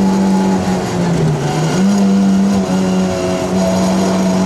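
Rally car's engine pulling hard at high revs, heard from inside the cockpit. The revs drop for a moment about a second in, climb back just before two seconds, and then hold steady.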